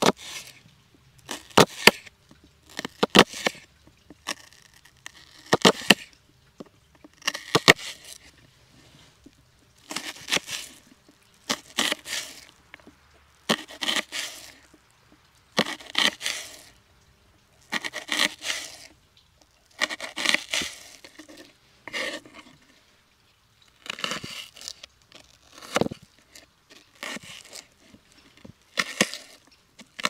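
Knife slicing through a raw onion: a crisp, crunchy cut roughly every two seconds, with short pauses in between.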